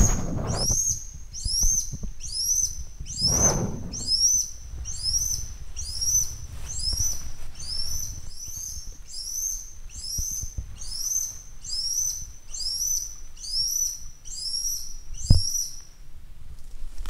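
A bird repeating a single high, arched call note at an even pace, a little over once a second. Brushing or rustling comes near the start and again about three seconds in, and there is one sharp click near the end.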